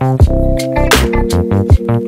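Background music: an electronic track with a steady drum-machine beat and synth notes.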